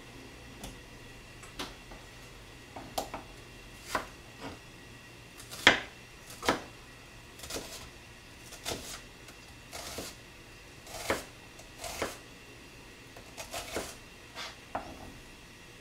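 Kitchen knife slicing an onion on a plastic cutting board: irregular sharp knocks of the blade meeting the board, about one or two a second, at an unhurried pace.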